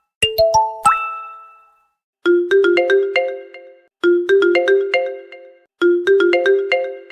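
Phone SMS notification ringtones. A short rising chime of four notes sounds and fades out. Then a different quick phrase of several notes plays three times, each repeat starting about every second and three-quarters.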